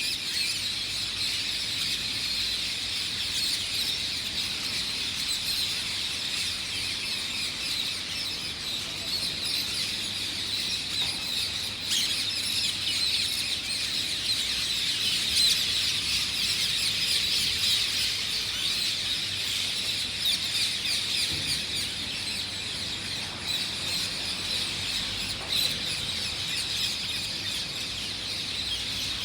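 A flock of small birds chirping together, a dense chorus of many overlapping short chirps that never pauses.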